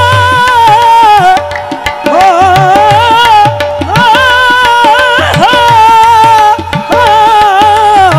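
Devotional qawwali music: a lead voice sings long held, sliding notes over harmonium, with tabla strokes keeping the beat.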